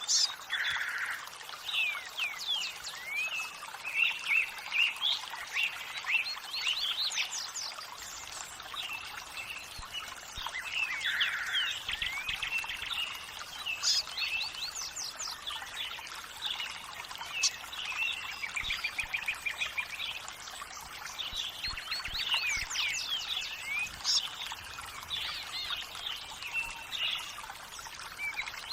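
Many songbirds chirping and calling in quick, overlapping phrases over the steady rush of running water.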